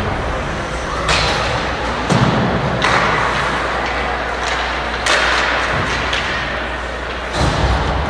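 Ice hockey play on a rink: about five sudden thuds and knocks, from stick, puck and boards, some with bursts of scraping noise like skates cutting the ice.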